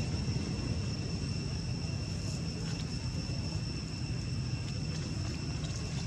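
Steady outdoor background noise: a constant low rumble with a thin, steady high-pitched drone above it.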